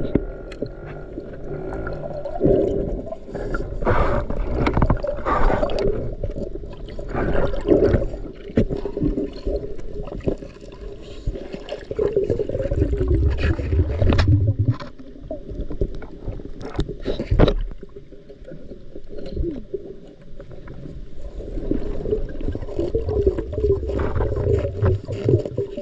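Muffled underwater sound of water moving around a submerged camera, swelling and fading, with scattered clicks and knocks.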